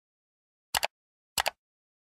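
Two sharp mouse-click sound effects from a subscribe-button animation, about two-thirds of a second apart, each a quick press-and-release pair.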